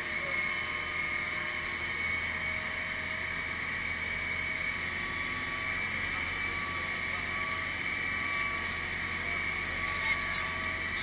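Amphibious truck running steadily afloat, its motor humming under the rush of water churning along the hull.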